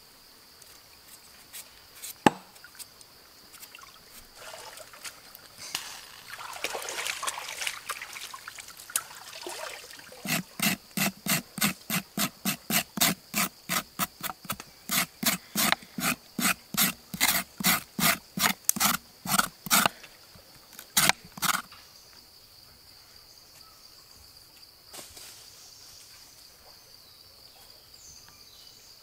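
A kitchen knife scrapes and cuts raw vegetables on a wooden board. The loudest part is a long run of even scraping strokes, about two a second, with a pause and two last strokes. A steady high insect drone runs underneath throughout.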